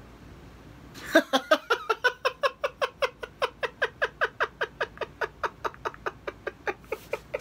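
A man laughing hard, starting about a second in: a long run of short, quick "ha" pulses, about six a second, each dropping slightly in pitch, thinning out near the end.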